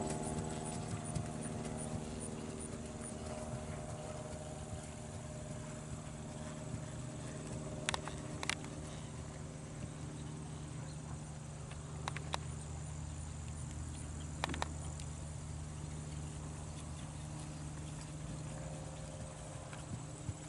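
Soft hoofbeats of a ridden Belgian draft gelding moving around a dirt arena, over a steady low hum, with a few sharp clicks in the middle.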